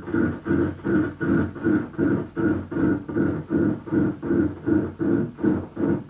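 Electronic music: a synthesized tone pulsing evenly, about two and a half times a second, each pulse a low hum with a higher ring on top.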